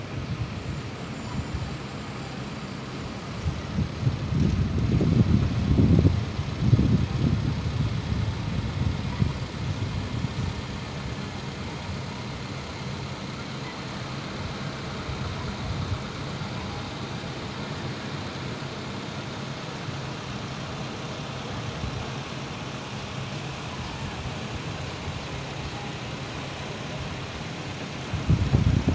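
Aichi SH15B aerial-lift truck running steadily with its engine and hydraulics working as the boom slews round under test. Irregular low rumbles come and go between about 4 and 10 seconds in and again near the end.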